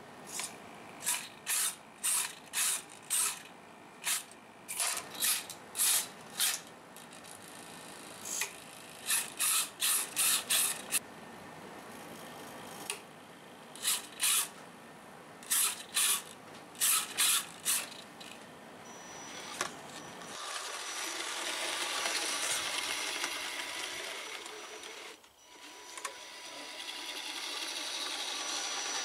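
Hobby servos on a 3D-printed RC snow plow whirring in short repeated bursts as they raise, lower and angle the blade. From about twenty seconds in there is a steady whirr with a thin high whine as the RC truck's electric motor drives it, pushing snow with the plow, with a short break near twenty-five seconds.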